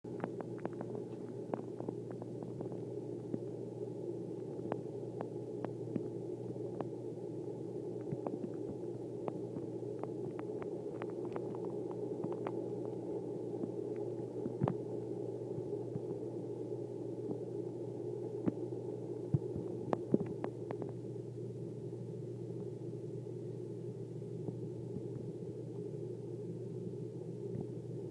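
Steady low hum, typical of an aquarium air pump running, with scattered light clicks that come most often in the first twenty seconds.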